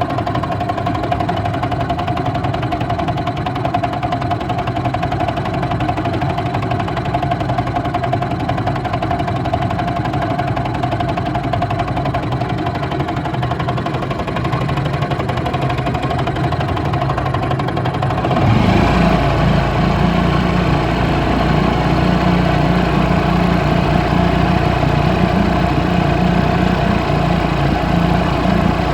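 1947 Mercury KE3 Comet outboard, a small two-stroke twin, running steadily while pushing a boat. About two-thirds of the way through it becomes louder and deeper.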